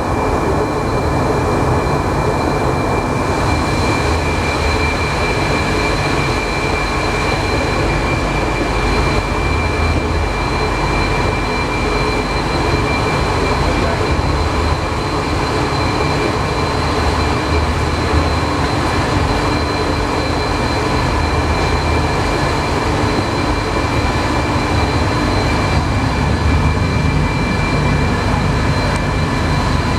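Alstom NS-93 rubber-tyred metro train running at steady speed: a continuous rumble with steady high whines over it.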